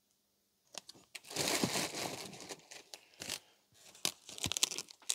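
Clear plastic wrapping crinkling and rustling as it is handled and pulled out of a cardboard box, with a few sharp clicks.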